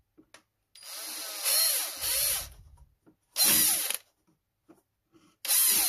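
Electric drill running in three bursts, the first the longest and the last starting near the end, as it re-drills a screw hole through a plastic mount in an electric unicycle's shell.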